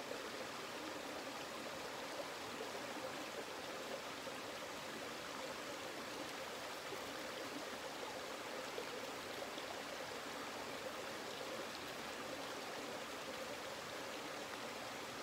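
Steady rush of flowing water, with faint scrapes of a Helle Eggen knife blade shaving thin curls down a wooden stick to make a feather stick.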